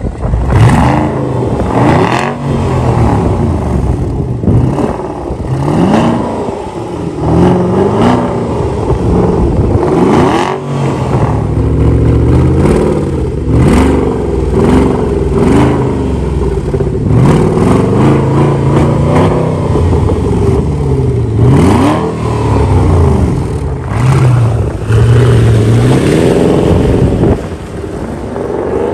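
Porsche Panamera Turbo's 4.8-litre twin-turbo V8 exhaust being revved again and again in short blips, the pitch rising and falling each time. Near the end the car pulls away. The exhaust has its resonator removed and its stock muffler cans reworked inside to make it louder.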